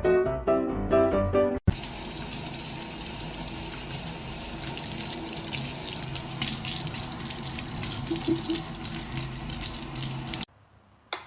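Water running steadily, a continuous splashing hiss like a tap left on, lasting about nine seconds and stopping abruptly near the end. It begins with a hard cut from piano music about a second and a half in.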